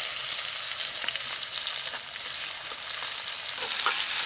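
Sliced onions frying in hot oil in a metal kadai: a steady sizzling hiss, with a spatula stirring them near the end.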